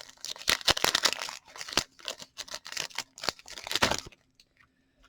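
A trading-card pack wrapper being crinkled and torn open and the cards handled: a quick run of rustles and scrapes that stops about four seconds in.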